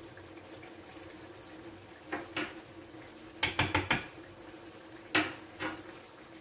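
A small ceramic spoon clinking against a clay tagine: two taps, a quick run of four, then two more, over the faint steady simmer of the tagine.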